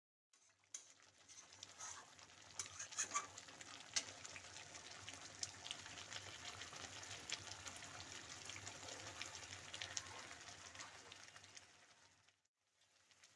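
Thick ground masala paste frying in oil in a steel kadai, sizzling faintly and bubbling with many small pops and spits. It comes in about half a second in and fades out near the end.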